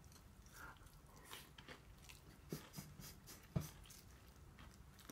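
Quiet eating: faint chewing of tofu topped with crushed spicy potato chips, with a few light clicks of a spoon against the bowl, the sharpest about halfway through.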